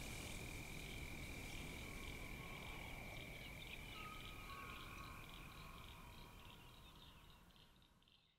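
Faint chorus of calling animals: a steady high trill with pulsing calls over it and a few fainter chirps in the middle, fading out near the end.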